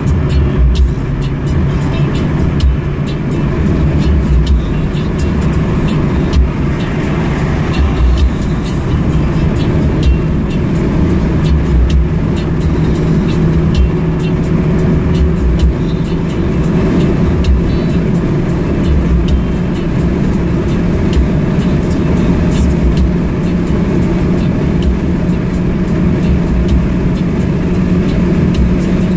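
Car driving at a steady pace: constant engine hum over low road rumble.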